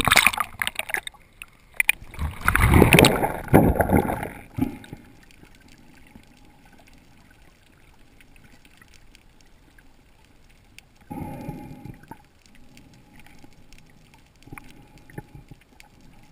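Water splashing and sloshing at the surface as the camera goes under, loudest over the first four seconds. It gives way to muffled underwater quiet with faint scattered clicks, a brief burst of noise about eleven seconds in and a smaller one near the end.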